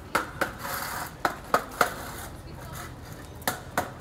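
A series of sharp, hard clacks, like hard objects striking a hard surface. They come as a pair near the start, a quick run of three about a second and a half in, and another pair near the end.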